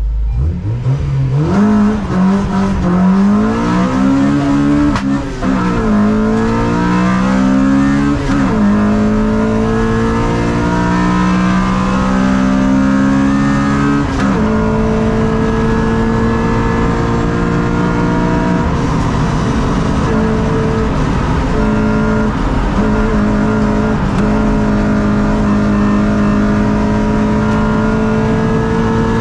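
Honda Civic VTi race car's 1.6-litre four-cylinder engine heard from inside the cabin, pulling hard from a standing start. Its pitch climbs and drops with three upshifts in the first fourteen seconds, then it holds high revs with brief lifts.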